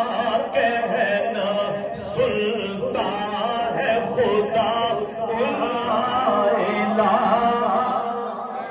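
Devotional chanting, most likely of durood (salutations on the Prophet), sung in a wavering, ornamented melody without a break.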